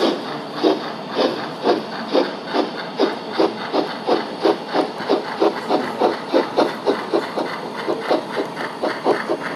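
Märklin Gauge 1 BR 58 model steam locomotive chuffing as it pulls away, over a faint hiss. The exhaust beats come about two a second at first and speed up to about three a second.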